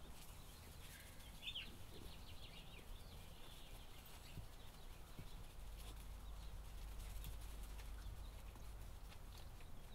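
Basset hound puppies shuffling and rustling in wood-shaving bedding, with faint clicks and a few brief high squeaks, the clearest about a second and a half in, over a low steady hum.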